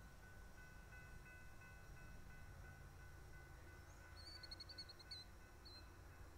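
Near silence with a faint low rumble of outdoor air. About four seconds in, a small songbird sings one short, rapid high trill, followed by a single brief note.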